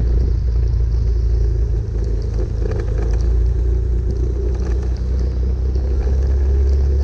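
Steady low rumble of a vehicle moving along a wet road in heavy rain, with the hiss of tyres and rain over it.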